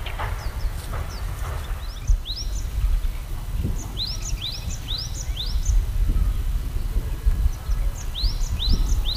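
Small birds calling: short, rising chirps, a run of about four around the middle and three more near the end, over a steady low rumble.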